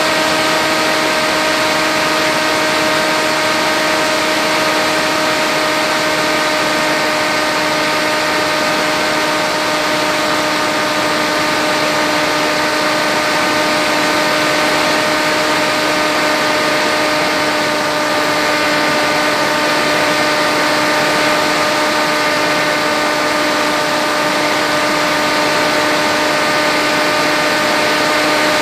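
The electric motor and pusher propeller of an FX-61 flying wing running at steady throttle, a constant droning whine with air rushing past underneath. It is heard through the aircraft's own onboard camera.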